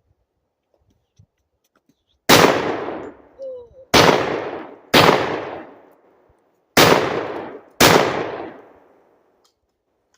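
Hatsan Escort SDX12 semi-automatic 12 gauge shotgun fired five times in quick succession, about a second apart. Each shot's report trails off over about a second. The string of shots empties the magazine.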